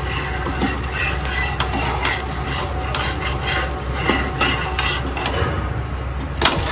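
A dosa sizzling on a hot tawa while a flat metal spatula scrapes underneath to loosen and lift it, with a sharp knock near the end.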